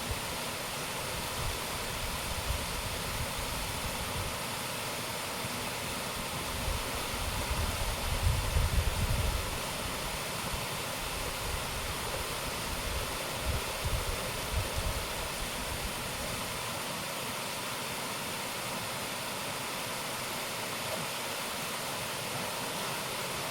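Steady rushing of a waterfall, with low rumbling surges about a third of the way in and again a little past the middle.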